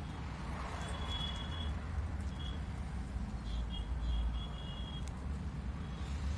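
Steady low background rumble, with a few short high-pitched chirps about a second in and again past the middle.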